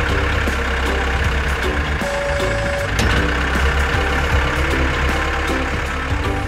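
Tractor engine sound effect running steadily with a deep rumble, with background music faintly underneath.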